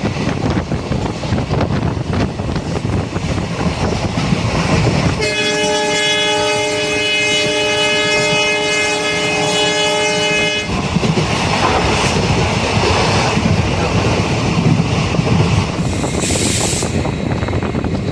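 Train running on the track with a steady rumble and wheel clatter. About five seconds in, a locomotive horn sounds one long steady blast of about five seconds, then the running noise carries on.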